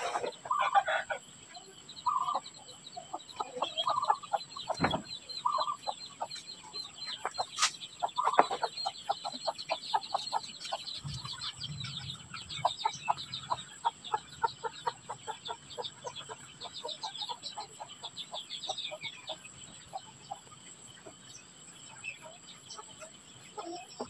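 Birds calling: short clucking notes, then a fast run of rapid chirps. There is a sharp click about halfway through.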